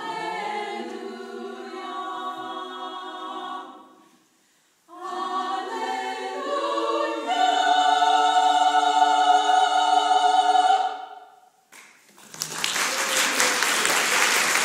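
Small choir singing a cappella, stopping briefly about four seconds in, then coming back and swelling to a loud held final chord that ends about eleven seconds in. Audience applause follows.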